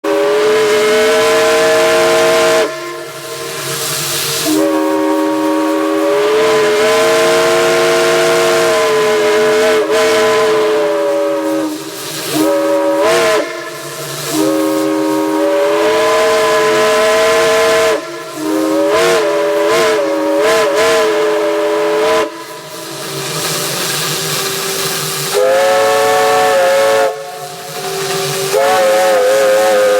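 Steam whistle blown in a series of long blasts and a few quick toots, several tones sounding together as a chord, with steam hissing between the blasts.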